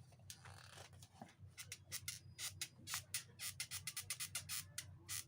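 A shoe's heel creaking over and over as the shoe is flexed, short dry creaks several a second. The squeak is typical of a heel nailed on at the factory without glue, so that leather rubs on leather.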